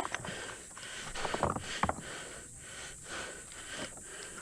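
A person breathing hard, in and out about every half to three-quarters of a second, while reeling in a hooked fish, with a cluster of sharp clicks and rustles about a second and a half in.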